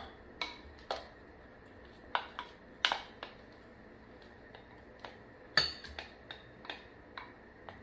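A spoon knocking and scraping against the inside of a glass food-chopper bowl to empty it into a glass bowl: a dozen or more irregular sharp clinks and taps, the loudest a little past halfway.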